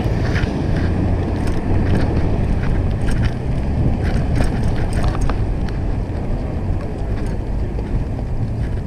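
A bicycle riding on wet tarmac: wind rumbling steadily on the bike-mounted camera's microphone over tyre hiss, with scattered small clicks and rattles from the bike.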